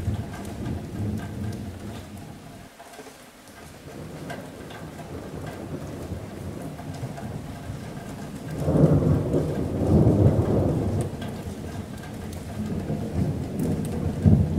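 Rolling thunder over steady rain on a metal roof. A rumble dies away in the first few seconds, a second swells up about nine seconds in and fades, and a third builds near the end.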